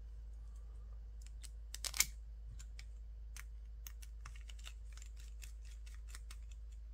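Scattered light clicks and taps of small screws and carbon-fibre frame parts being handled during a drone frame build, with one louder click about two seconds in.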